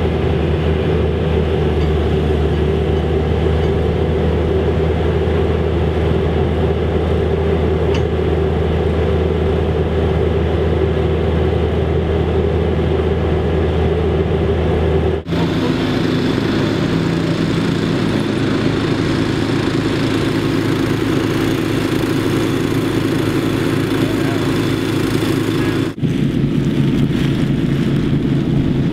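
Mini excavator engine running steadily while its auger attachment works at a ground anchor in sand. The sound cuts abruptly about halfway through, and again near the end, each time to a different steady engine drone.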